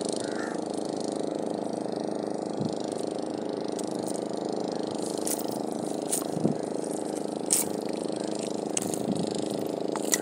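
A steady mechanical hum, like a motor running, with a few short sharp clicks in the second half.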